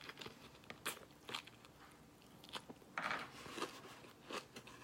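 A person chewing a mouthful of vegan sandwich close to the microphone: irregular crunches and mouth clicks, with a longer crunch about three seconds in.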